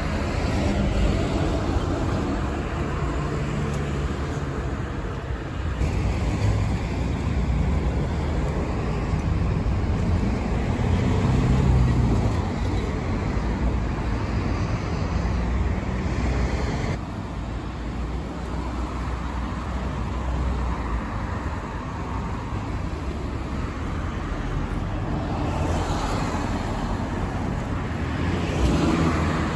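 Street traffic: car and truck engines running and tyre noise as vehicles pass, with the sound changing abruptly twice.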